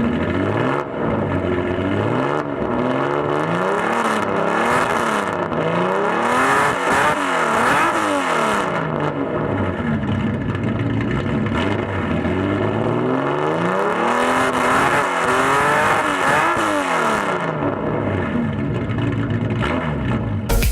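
Older Nissan Skyline's engine being revved hard in repeated throttle blips, its pitch climbing and dropping a dozen or so times, with a calmer stretch near the middle.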